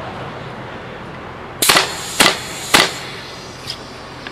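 Converted fully automatic CO2 paintball gun dry-firing with the trigger held down: three sharp pops of gas about half a second apart. It cycles on full auto but very slowly.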